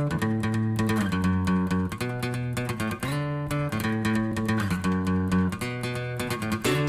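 Background music: an upbeat song led by plucked, strummed guitar with bass, changing chords every second or so over a steady strummed rhythm.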